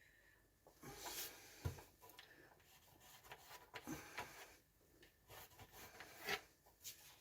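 Faint rubbing and scraping of parts being handled, with a few light knocks, the loudest about a second and a half in and near the end.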